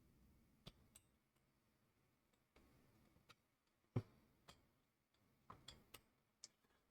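Near silence with a few faint, sharp clicks, one louder about four seconds in and several small ones near the end: small hand tools and tiny plastic model kit parts being handled on the bench.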